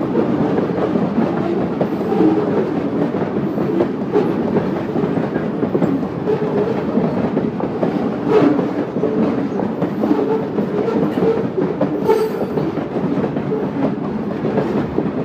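Freight train cars rolling past close by, a steady rumble and clatter of wheels on the rails, with a few sharper clanks along the way.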